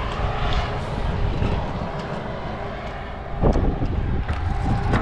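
Wind rumbling on the microphone of a moving bicycle, with a truck ahead fading into the distance. A sharp knock sounds about three and a half seconds in.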